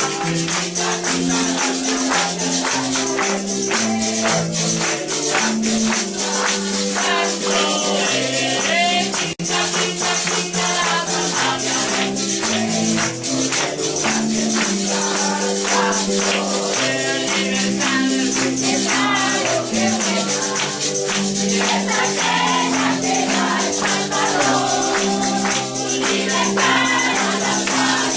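Church worship music: voices singing together over a band with a walking bass line, and a tambourine and shakers rattling to a steady beat.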